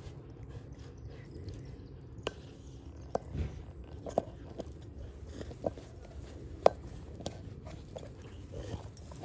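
A Boston Terrier gnawing and biting on a large ball, its teeth making irregular sharp clicks and snaps against the ball, the loudest about two-thirds of the way in.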